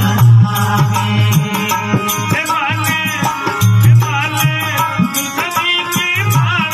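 Rajasthani folk bhajan music: a dholak drum keeps a steady beat under quick, even high-pitched clicking percussion, while an ornamented melody with wavering, bending pitch rises and falls in short phrases.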